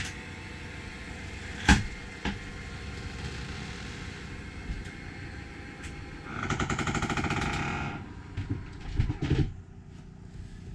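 The cabin-floor engine hatch on its hydraulic lift drops shut with a sharp knock and a loud thump about two seconds in. Near the middle comes a rapid rattle lasting under two seconds, and a few more knocks follow near the end.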